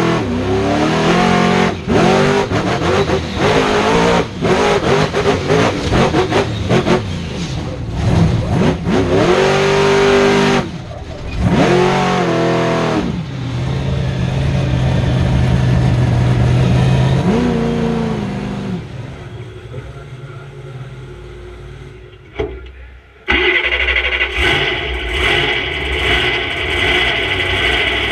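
Monster truck engine heard from the cab, revving hard again and again with its pitch sweeping up and down. It then holds one steady note for a few seconds, revs once more and fades away. About two-thirds of the way in, the sound cuts abruptly to a steadier, brighter drone.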